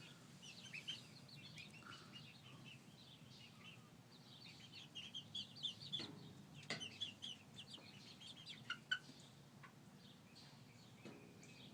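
Young chickens peeping and clucking softly: runs of short, high peeps, densest around the middle, with a few sharp clicks there too.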